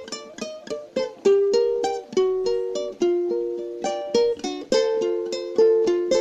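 Solo melody on a plucked instrument, played one note at a time, each note starting crisply and ringing out as it fades.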